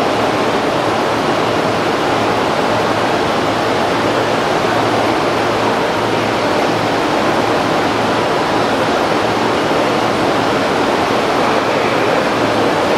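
Steady rushing ambience of an underground railway station, with a JR East E231 series 800-number commuter train standing at the platform, and a faint low hum under it.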